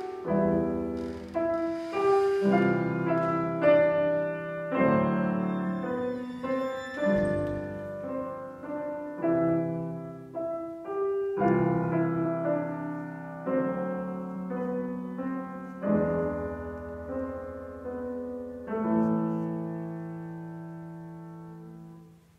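Yamaha grand piano playing a classical piece in a run of struck chords and phrases. It closes on a final chord, struck about 19 seconds in and held, that fades away until it dies out near the end.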